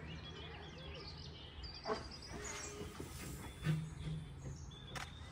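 Small birds chirping and singing in the surrounding trees, many short high calls over a steady low rumble. There are two sharp knocks, about two seconds in and near the end, and a brief low tone a little past halfway.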